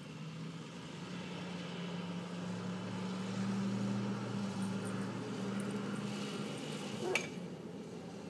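UPS delivery van's engine running as the van passes, growing louder to a peak about halfway through, then fading away. A single sharp click near the end.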